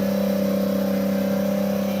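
A vehicle engine running at steady high revs, its pitch held level.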